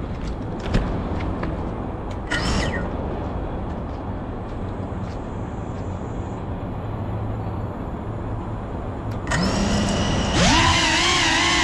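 Steady outdoor background noise with a sharp knock under a second in, then near the end the GEPRC Cinelog35 cinewhoop drone's motors spin up on the ground: a whine starts, then rises in pitch and settles into a steady high whine with several tones, wavering slightly, as the drone gets ready to lift off.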